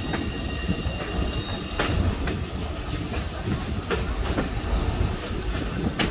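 Passenger train rolling along the track: a steady low rumble with irregular sharp clicks of the wheels over the rails, and a thin high wheel squeal that stops about two seconds in.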